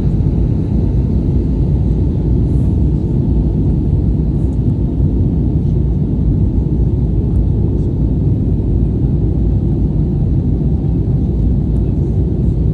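Steady low rumble of an Airbus A320's cabin in flight, the engines and the airflow over the fuselage heard from a window seat.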